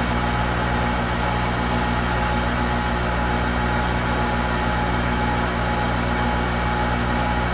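Electric shop machine running steadily, a constant hum with no change in speed.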